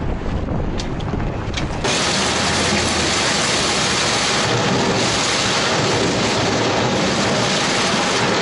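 A 1986 Ford dump truck driving on a dirt track, heard from a camera on the outside of its bed: wind buffeting the microphone makes a loud, steady rush over the low rumble of the truck. The rush grows louder about two seconds in.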